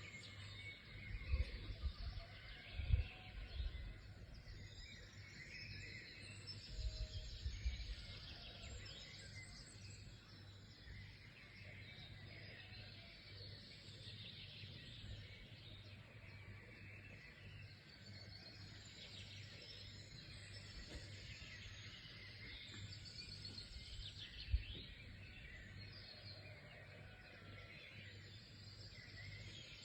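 Several wild birds chirping and singing at once, overlapping calls that go on without a break. A few low thumps come in the first few seconds, again around seven seconds, and once more near the end.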